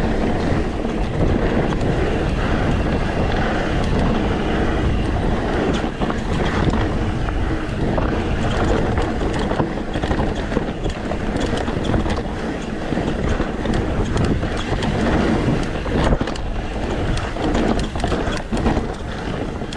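Wind rushing over the camera microphone and knobby tyres rolling over rocky dirt on a fast YT Decoy mountain-bike descent, with the bike rattling and knocking over rocks and roots.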